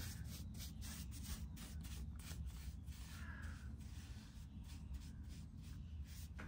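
Faint, quick repeated strokes of a bristle paintbrush spreading undercoat over a wooden tabletop, over a low steady hum.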